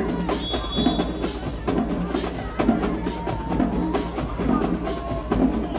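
High-school marching band playing in the stands, its drums keeping a steady driving beat of sharp repeated strikes.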